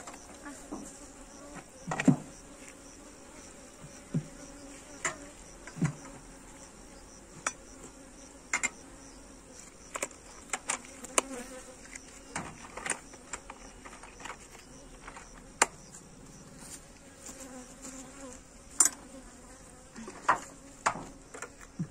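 Honeybees humming steadily around open hives, with repeated sharp knocks and clicks as a wooden hive lid is set down and its metal latches are snapped shut. The loudest knocks come about two seconds in and near the end.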